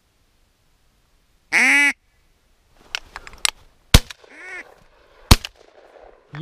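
A loud single quack, then two shotgun shots about a second and a half apart, with a softer quack between them. The shots bring down a duck.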